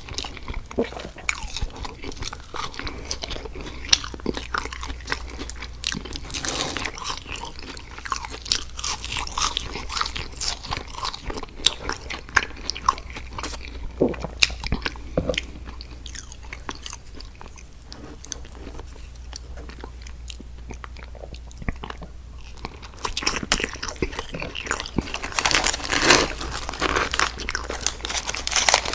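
Close-miked mouth sounds of a person biting and chewing food: crunchy bites and a dense run of small clicks and crackles. They ease off for a few seconds past the middle, then grow busier and louder again toward the end.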